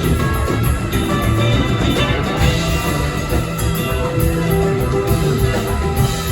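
Live rock band playing an instrumental passage, with electric guitar, bass and drum kit, loud and steady.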